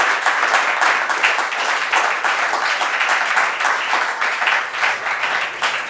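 Audience applauding: a roomful of people clapping steadily.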